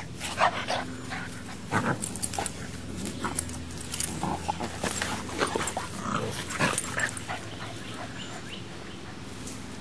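Boxer puppy and English Mastiff play-fighting: a string of short, irregular dog vocalizations, quick growls and yips, that starts about half a second in and dies away about two seconds before the end.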